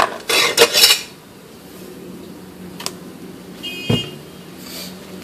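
Handling noise as a phone camera is moved: a sharp click, then loud rustling and scraping about half a second to a second in, and a few later knocks and a dull thump near the end, over a low steady hum. A short thin beep sounds about three and a half seconds in.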